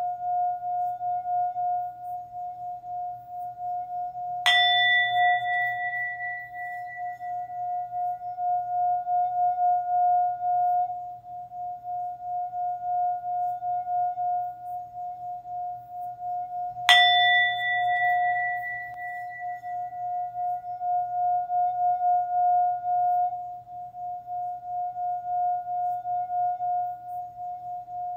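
Singing bowl struck twice, about twelve seconds apart, each strike adding a bright ring over a steady, pulsing hum that sustains between strikes.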